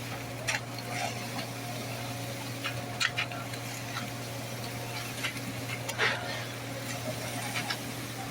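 Concrete pouring work: a steady low machine hum with scattered short knocks and scrapes, the sharpest about three and six seconds in.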